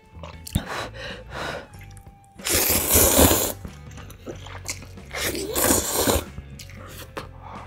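Ramyun noodles slurped from chopsticks twice, each a loud slurp of about a second, with chewing and small mouth noises between.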